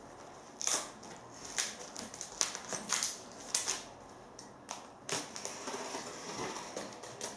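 Utility knife slicing through a cardboard parcel and its packing tape: irregular scratchy cuts and crackling rustles of the packaging.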